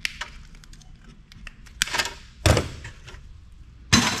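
Electronic scrap being taken apart with wire snips: small sharp clicks as connectors are cut off a circuit board, then two loud clunks of metal parts about two and a half and four seconds in.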